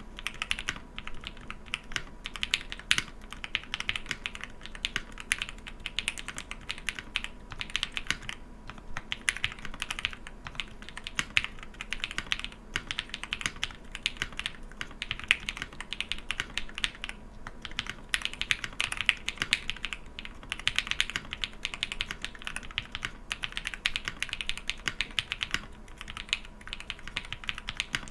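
Qwertykeys QK65 mechanical keyboard with KTT Kang switches, PBT keycaps and an aluminium plate being typed on steadily: a continuous run of keystroke clacks, with short pauses every few seconds.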